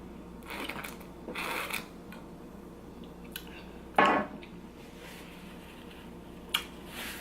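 Mouth sounds of someone eating close to the microphone: soft chewing in the first couple of seconds, then one sharp, louder sound about four seconds in, over a faint steady hum.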